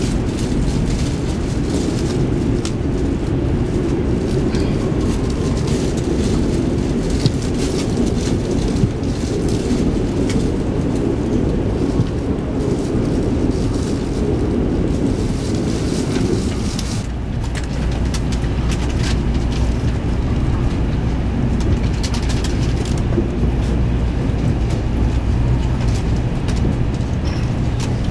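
Shinkansen departing, heard from inside the carriage: steady rumble of the train and of another Shinkansen alongside. A little over halfway through the louder rumble falls away, leaving a steady low hum of the moving train.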